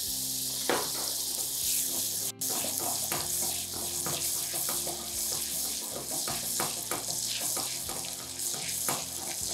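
A hot, empty stainless-steel pot hissing and crackling on the hob as leftover water boils off, heating up before the butter and corn flour go in. The crackles come thickly and unevenly all through.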